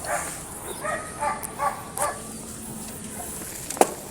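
A dog barking, a quick run of short barks that stops about two seconds in, followed by a single sharp click near the end.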